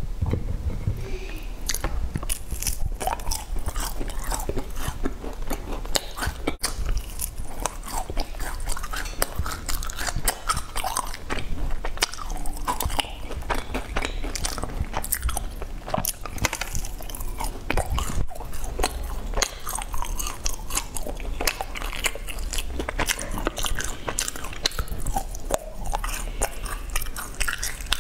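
A person biting into and chewing sesame-crusted brown cake, with many small sharp crunches coming irregularly throughout.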